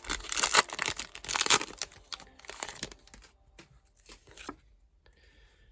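A foil Pokémon card booster pack being torn open, its wrapper crinkling and tearing loudly for about three seconds. Fainter rustles and clicks follow, dying away about four and a half seconds in.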